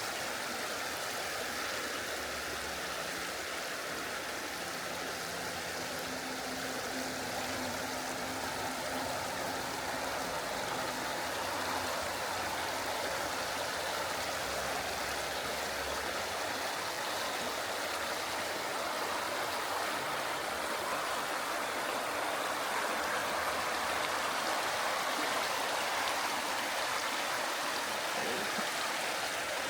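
Small mountain stream babbling and rushing steadily over rocks.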